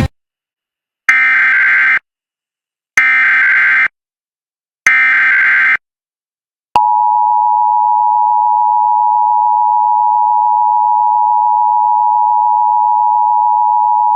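Emergency Alert System test tones: three short bursts of SAME header data tones, about a second each with brief silences between, then about seven seconds in the steady two-tone EAS attention signal starts and holds.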